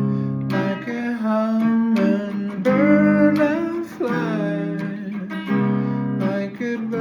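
Music: acoustic guitar playing chords that change every second or so, with a higher melody line bending in pitch over them.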